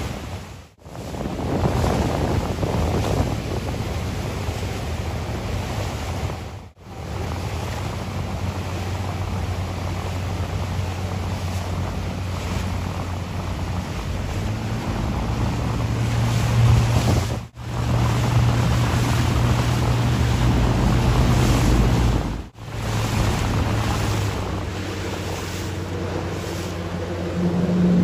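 Yamaha outboard motor on a small planing open boat running at speed, a steady low drone whose pitch steps up a little midway and again near the end, over wind buffeting the microphone and the hiss of the wash. The sound breaks off four times in short sudden gaps.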